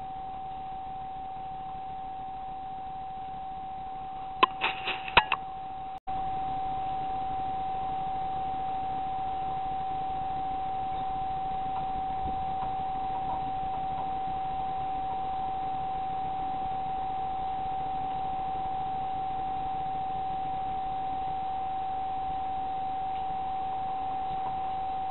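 Steady high-pitched electronic whine over a faint hiss, from a digital night-vision rifle scope's recorder. About four seconds in comes a quick run of four or five sharp clicks.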